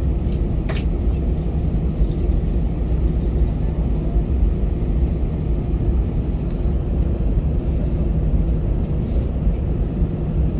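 Steady low rumble inside an Airbus A320 cabin on the ground, with a few faint steady hum tones and one sharp click just under a second in.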